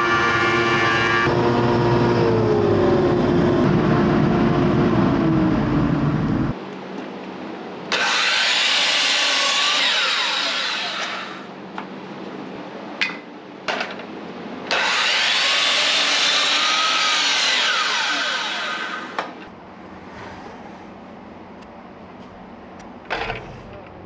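DeWalt sliding compound miter saw making two crosscuts through poplar boards, each a loud burst of a few seconds as the motor spins up, cuts and spins down, with a few clicks between. Before that, a loud woodworking machine runs for about six seconds and cuts off abruptly.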